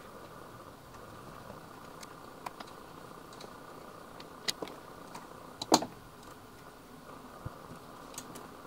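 Scattered small clicks and knocks from hands handling packing and parts inside a 3D printer's build chamber, the loudest about six seconds in, over a faint steady hum.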